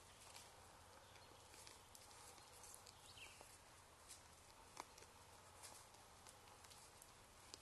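Near silence over a faint steady hiss, broken by scattered soft clicks and ticks from white-tailed deer grazing close by, cropping grass and stepping on the lawn; the sharpest tick comes about five seconds in. One short high chirp sounds about three seconds in.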